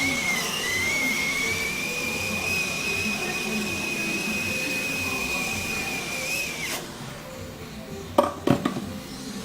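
Hot-air rework station blower running with a steady high whine and hiss, which cuts off almost seven seconds in. Two sharp clicks follow near the end.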